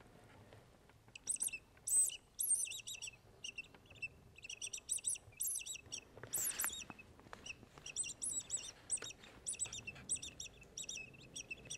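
Plastic mouse-squeak predator call (myškovačka) blown and sucked in quick groups of thin, high squeaks that imitate a squealing mouse, the lure used to call in foxes. The squeaks begin about a second in and come in short bursts with brief pauses between them.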